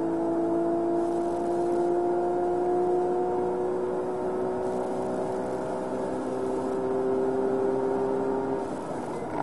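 Porsche 997 GT3 RS flat-six engine under full throttle in a high gear, its note climbing slowly and steadily just after an upshift. Near the end the engine note drops away as the driver lifts off for braking.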